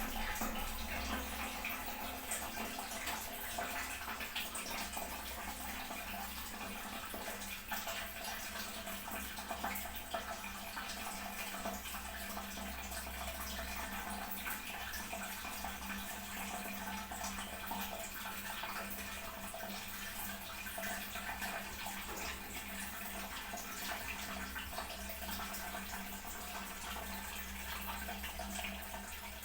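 Toilet cistern refilling: a steady hiss of water running in through the fill valve, even throughout.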